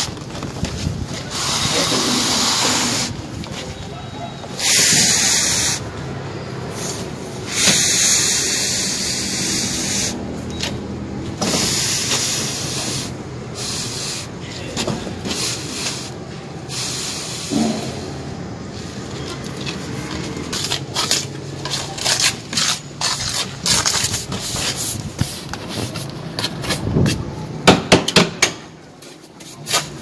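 Metal pipe being drawn along wet sand-and-cement render to form a moulding. It makes a rough scraping hiss in strokes a second or two long, with scattered taps and knocks, more of them in the second half.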